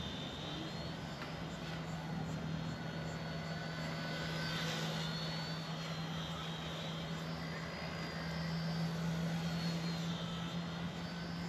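Eachine E129 mini RC helicopter in flight: a steady buzzing hum from the rotor with a high electric motor whine that slowly rises and falls in pitch as the throttle changes.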